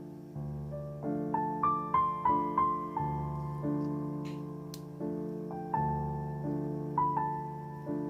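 Background piano music: a gentle melody of single notes that ring and fade over low chords, with a quicker run of higher notes a second or so in.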